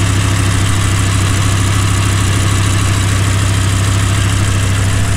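Audi R8 V10 engine idling with a misfire on cylinder number 8, the engine shaking; the fault was traced to the ECU sending no pulse to injector number 8. It runs as a steady, even idle throughout.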